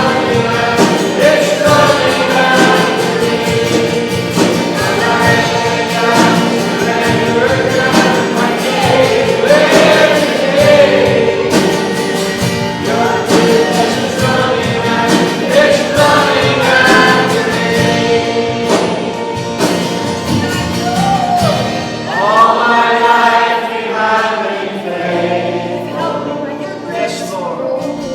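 Worship song with several voices singing over instrumental accompaniment.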